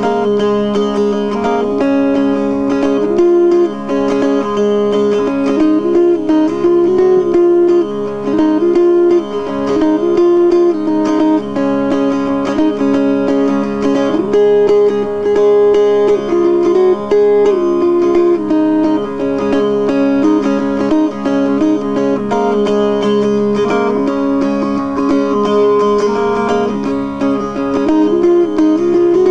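Background music played on plucked string instruments, guitar-led, with a melody stepping up and down over held notes.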